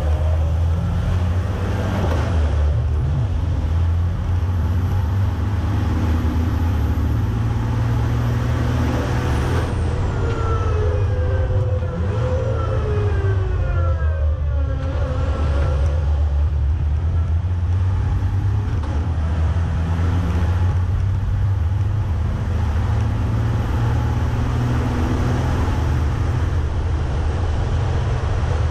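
Onboard sound of a Freightliner racing truck's turbocharged diesel engine running hard at race pace, a deep steady drone with its pitch sliding up and down between about ten and fifteen seconds in as it brakes and accelerates through corners.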